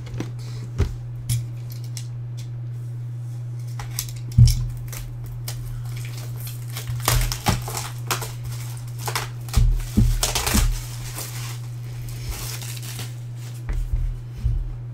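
Cellophane shrink wrap crinkling and crackling as it is peeled off a clear acrylic card case, with scattered clicks and knocks from the case being handled; the sharpest knock comes about four seconds in. A steady low hum runs underneath.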